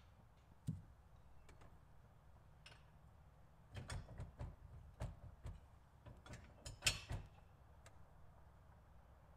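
Steel hitch mount being worked into a vehicle's receiver tube: scattered metal clunks and knocks, a run of them from about four seconds in, the loudest near seven seconds.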